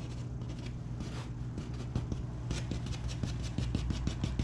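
Fingertip scratching through frost on a car's side window glass, a quick run of short scrapes that come thicker toward the end, over a steady low hum.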